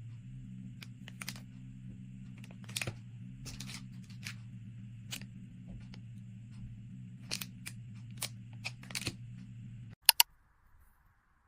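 Packaging and merchandise being handled and unpacked: scattered clicks, taps and rustles over a steady low hum. About ten seconds in come two sharp loud clicks, and the hum cuts off.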